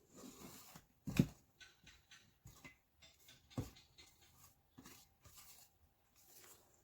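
Cooking utensils scraping and knocking against a mixing bowl of cake batter: soft irregular scraping, with two sharper knocks about a second in and again near the middle.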